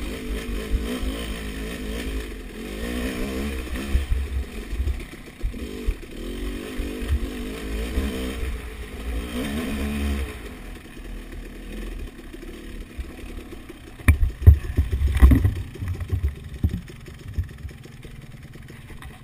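Dirt bike engine revving up and down as it climbs a rough trail. After about ten seconds it drops to a lower, quieter run, and a series of loud knocks and clattering follows a few seconds later.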